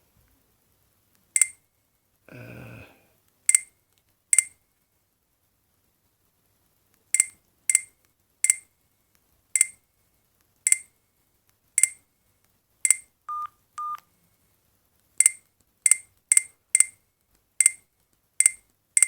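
Alcatel OT-810 keypad tones: short, sharp beeps, one per key press, about eighteen at irregular intervals as the phone's menus are scrolled through. A pair of short, lower, steadier beeps comes a little past two-thirds of the way through.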